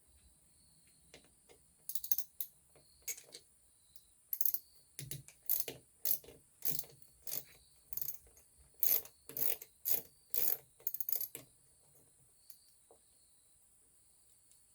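Ratchet wrench with an 8mm socket working a bolt loose on an ATV's clutch lever perch, clicking in a string of short strokes that stops near the end.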